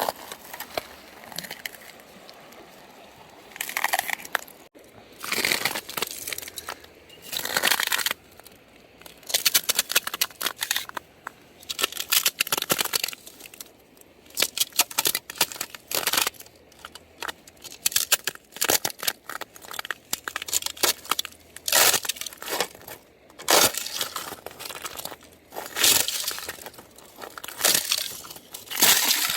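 Feet stepping on white frozen stream ice, each step a crunch, coming irregularly about every one to two seconds; some steps break into a run of sharp crackles as the ice gives way.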